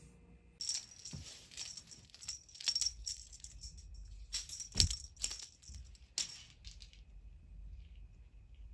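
A cat toy being shaken hard, a rapid, irregular jingling rattle that starts about half a second in and stops about two seconds before the end, with one sharp knock near the middle.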